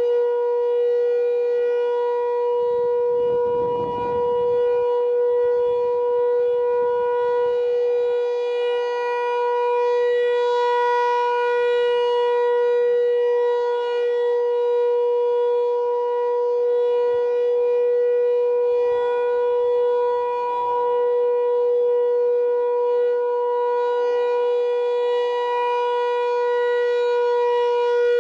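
Civil defense siren sounding a steady, unwavering tone at full speed, loud throughout.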